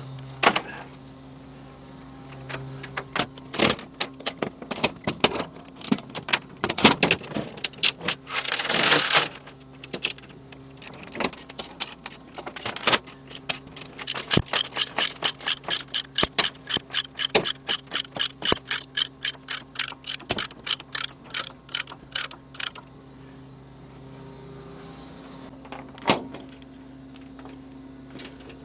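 Steel load chains clanking and rattling, then a ratchet load binder being cranked in a fast, even run of clicks, about four a second for several seconds, as a chain is tightened down. A steady engine hum runs underneath.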